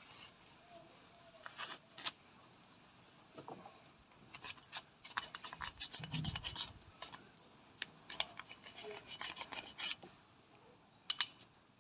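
Rubbing and scraping while the inside of an old ratchet head is wiped out, with irregular small clicks of the metal parts being handled and one soft thump about six seconds in.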